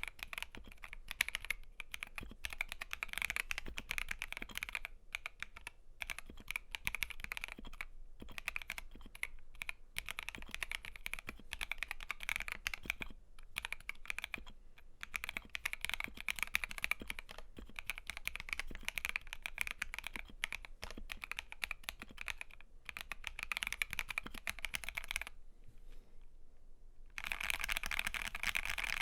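Fast, steady typing on an FL.eSports FL680 mechanical keyboard with stock Gateron CAP yellow linear switches, PBT double-shot keycaps and lubed stabilizers: a dense run of key clicks and bottom-outs. The typing stops for about two seconds near the end, then starts again.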